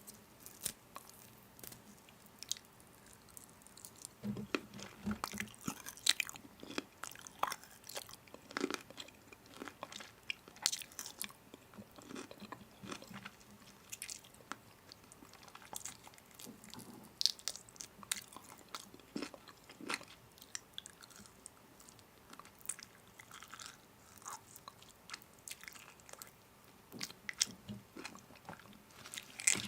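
A person chewing and biting into crunchy food, with irregular crisp crunches and crackles throughout.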